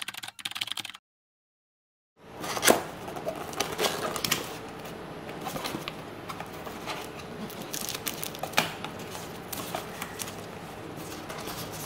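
Cardboard box flaps and paper inserts being handled, starting about two seconds in: steady rustling and scraping of card and paper, with many sharp crinkles and clicks. Before that comes a short burst of rapid clicking lasting about a second, then silence.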